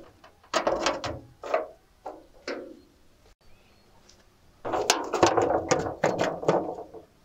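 Large smooth stones knocking and scraping on a rusty steel sheet as they are set down and shifted into place: a few separate knocks about half a second in, then a denser run of knocks and scrapes from about four and a half seconds.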